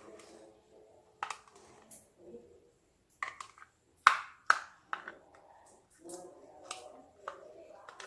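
Small plastic pots, lids and cups of a toy slime kit being handled: a scattering of sharp clicks and taps, the loudest about four seconds in.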